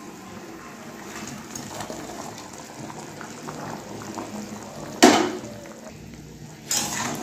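Chili chicken sauce bubbling at the boil in an aluminium kadai, with fried chicken pieces going into it. About five seconds in there is a sudden loud knock, and another shorter one near the end.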